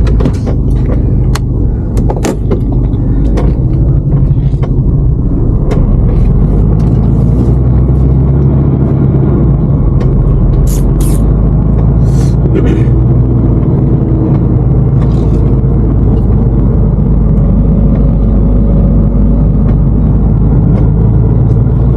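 Heavy truck's diesel engine running steadily, heard from inside the cab as the truck moves off and turns at low speed. A few short clicks and knocks sound over it in the first seconds, and a few brief sharp sounds come about eleven and twelve seconds in.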